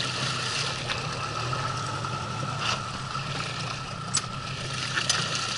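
Suzuki 9.9 hp outboard motor running steadily at low throttle on an inflatable PVC boat: an even hum with a thin steady tone over it.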